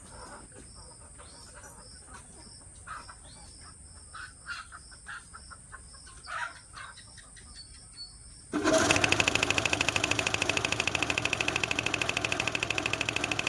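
Faint crickets and scattered bird chirps, then about two-thirds of the way in a belt-driven air compressor and its 1.5 HP single-phase electric motor switch on suddenly and run with a fast, steady pulsing. The motor's bearings are freshly greased.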